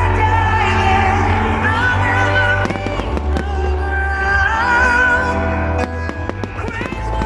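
A pop song with a heavy bass line plays loudly, while fireworks bang and crackle over it in two clusters, about three seconds in and again near the end.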